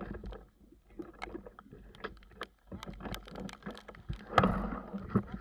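Rain with drops tapping irregularly on the camera, over a low rumble; a louder rush of noise comes in near the end.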